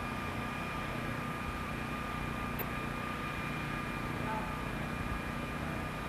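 Steady background noise: a low rumble and hiss with a faint, steady high whine, and no distinct event.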